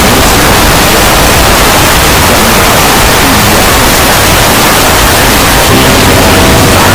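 Deliberately overdriven meme sound-effect audio, clipped into a constant, very loud wall of static-like noise, with faint pitched traces of the original sound buried under it.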